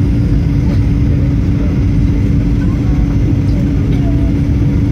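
Cabin noise of a Boeing 737-800 on final approach: a steady, loud rumble of airflow and the CFM56-7B turbofan engines running, with a constant low hum.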